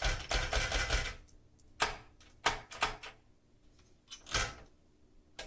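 Smith Corona Super Sterling manual typewriter's tab mechanism being worked: a rattling clatter about a second long, then five or six separate sharp mechanical clicks as the tab-set and tab keys are pressed. The set key is not catching on the first press and has to be hit at least twice before the tab stop sets.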